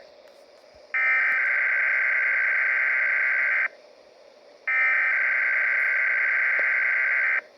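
Weather radio sending the SAME digital alert header for a required weekly test: two harsh, buzzy data bursts, each almost three seconds long, about a second apart.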